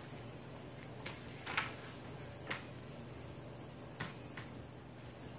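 Pages of a picture book being handled and turned: a few soft, irregular clicks and paper rustles over a faint steady hum.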